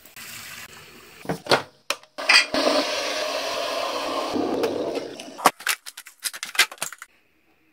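Water running steadily for about three seconds while tea is made, then a quick run of clinks and knocks of mug, spoon and containers on the worktop.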